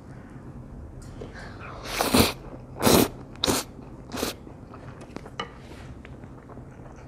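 A person slurping a mouthful of stir-fried instant noodles off chopsticks in four loud slurps between about two and four and a half seconds in, followed by a few faint mouth clicks while chewing.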